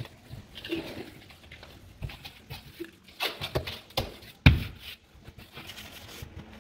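Irregular knocks and bumps from handling and setting large thin porcelain wall slabs, with light scraping between them. The loudest knock comes about four and a half seconds in.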